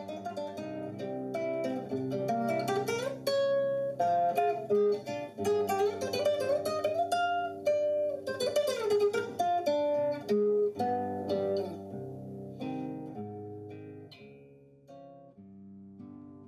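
Classical guitar playing a flowing piece of plucked notes and quick runs, growing quieter near the end.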